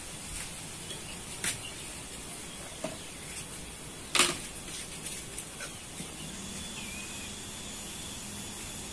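Fresh banana leaf handled and folded by hand into a food wrapper: soft rustling and crackling of the leaf, with a few sharp snaps, the loudest about four seconds in.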